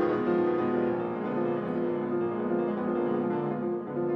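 Background music: piano playing a gentle, flowing melody.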